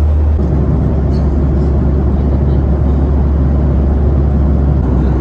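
Steady cabin noise of a Boeing 737-800 in flight: a loud, even, deep rumble of engines and rushing air.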